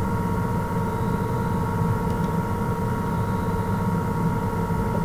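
A steady hum with several constant tones underneath, unchanging throughout.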